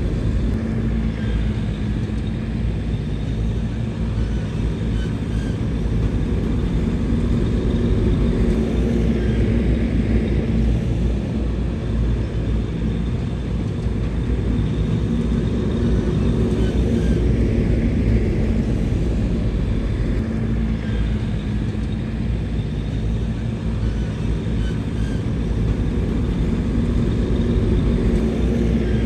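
Bulldozer's diesel engine running with a steady low rumble, the level swelling and easing every several seconds as the machine works.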